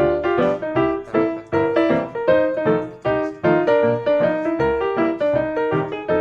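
Background piano music: a quick run of short, evenly paced notes.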